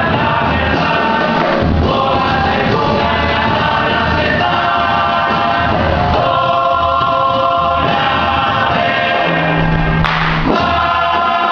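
Music with a group of voices singing together like a choir, sustained chords changing every second or so.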